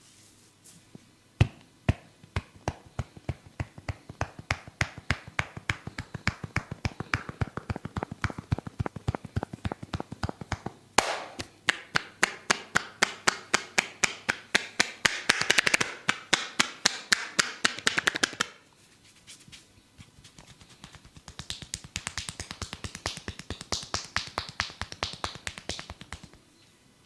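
Barber's hands striking a person's head in a percussive head massage: quick, sharp claps at about four to five a second. They stop briefly after about eighteen seconds, then start again.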